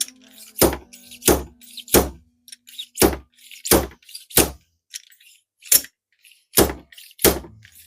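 Fork bushing driver striking repeatedly to drive a new bushing into a motorcycle fork tube, with about nine sharp metallic knocks, roughly one every two-thirds of a second and a short pause about halfway through. The bushing is being seated but is not yet fully home.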